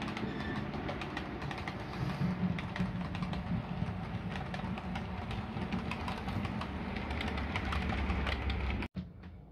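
OO gauge model Class 66 locomotive and its wagons running along the layout's track: a steady low hum with a rapid, uneven patter of clicks from the wheels on the rails. The sound drops off sharply near the end to a quieter hum.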